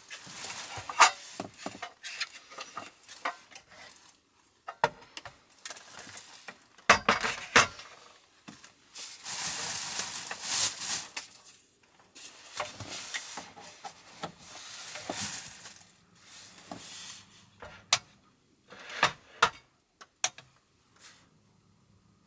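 Handling noises as an electric takoyaki plate is unpacked and set up on a wooden table: irregular rustling, knocks and clicks, with a denser burst of rustling about halfway through.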